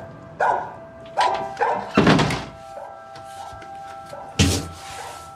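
A dog barking several times outside, over a steady held music note. A casement window is shut with a thud partway through.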